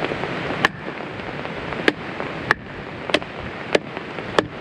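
Steady rain hiss with large drops tapping sharply on the umbrella overhead, about six separate taps spaced irregularly.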